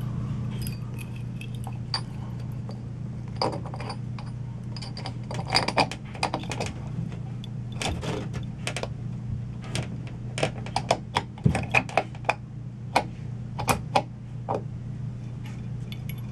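Porcelain ceiling lampholder clicking and clinking against its metal mounting screws and the electrical box as it is pushed up and twisted into its keyhole slots: a string of short, irregular knocks, busier in the second half, over a steady low hum.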